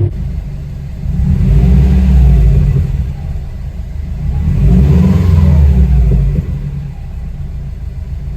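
Subaru WRX's flat-four engine running and being revved twice, each rev lasting about two seconds, then dropping back to a steady lower run.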